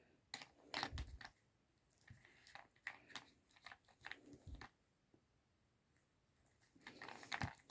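Faint, scattered clicks and knocks of a dachshund nosing and licking at the pieces of a butterfly-shaped treat puzzle toy, in short irregular clusters with a pause of a couple of seconds near the end.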